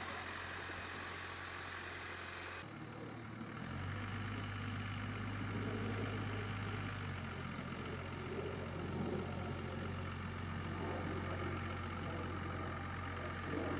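Pickup truck engine running steadily with a low hum while towing a long trailer loaded with round hay bales. In the first couple of seconds, before a sudden change in the sound, a tractor's engine runs as it carries a round bale on its front loader.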